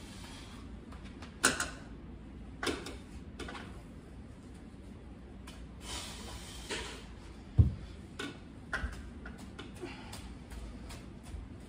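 Window squeegee and scrubber working a sliding glass door: a series of short, scattered wiping and scraping strokes on the glass. About seven and a half seconds in comes a single dull thump, the loudest sound.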